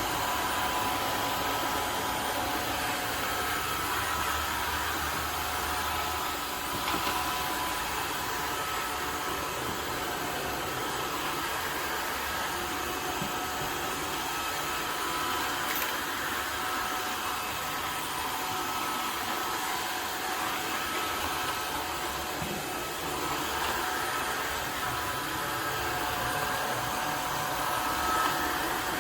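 Tineco Floor ONE S5 cordless wet-dry vacuum running steadily: an even motor hiss with a faint high whine.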